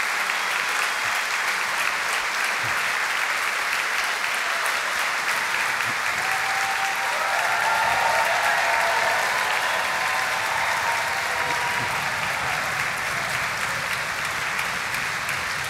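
A large audience applauding steadily, with a few voices calling out over the clapping about halfway through.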